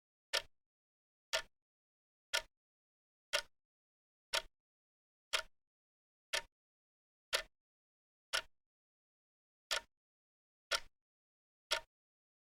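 Clock ticking steadily, about one sharp tick a second, with nothing heard between the ticks.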